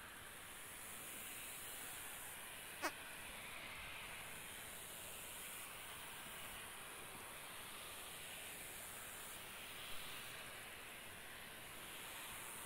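Steady hiss of a taxiing Boeing P-8 Poseidon's CFM56 turbofans at idle. A single sharp click comes about three seconds in.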